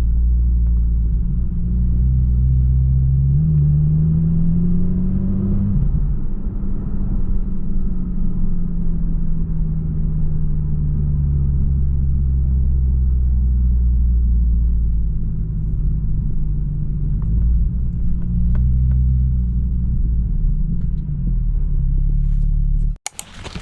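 An engine running with a steady low rumble; its pitch rises over a few seconds, then settles and holds. It cuts off suddenly near the end.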